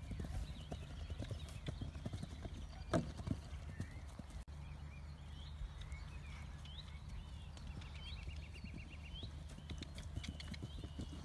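Connemara-type pony's hooves drumming on grass turf at a canter, with thuds loudest near the start and end and one heavier thump about three seconds in. Birds chirp in the background, with a rapid trill in the second half.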